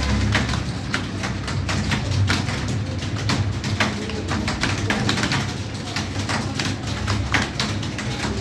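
Fast typing on a computer keyboard: an irregular run of key clicks, several a second, over a steady low hum.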